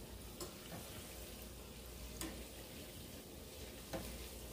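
Banana dough balls deep-frying in a saucepan of hot oil: a faint, steady sizzle and bubbling, with a few light clicks as a metal slotted spoon stirs them against the pan.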